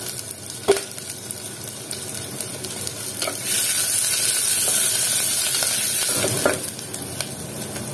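Onions, garlic, ginger and green chillies sizzling in hot oil and ghee in an open pressure cooker while being stirred with a wooden spatula. The sizzle grows louder for a few seconds in the middle, and the spatula knocks against the pot a few times.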